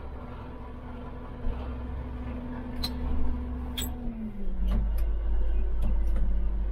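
Case 9280 tractor's diesel engine running, heard from inside the cab, with several sharp clicks of the gear shift and control levers being moved. About four seconds in, the engine note drops lower and the low rumble gets louder.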